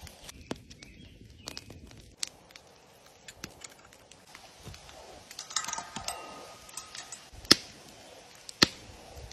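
Split logs set onto a crackling campfire, then metal clinking as a chain and a round steel griddle pan are hung on a wooden tripod over the fire. Two sharp metallic clanks about a second apart near the end are the loudest sounds.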